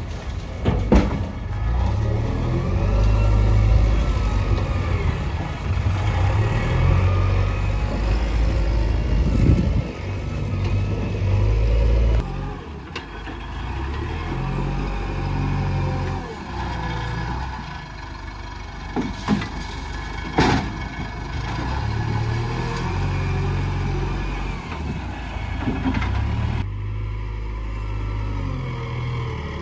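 Diesel engine of a JCB Eco Excellence backhoe loader working, its revs rising and falling under load, with a few sharp knocks.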